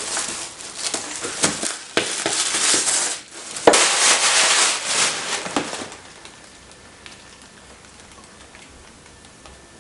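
Gift wrapping paper being torn and crumpled off a small boxed present, a dense crackling with a couple of sharp snaps, stopping about six seconds in.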